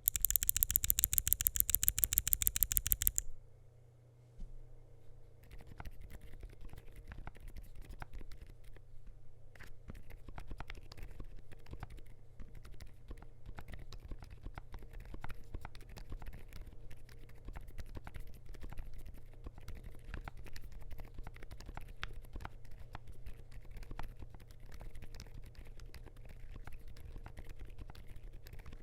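About three seconds of a fast, even run of sharp, high clicks, about a dozen a second. Then, after a short pause, continuous typing on a Zuoya LMK81 mechanical keyboard with lubed DUROCK Dolphin silent linear switches: a steady, irregular stream of quieter keystrokes.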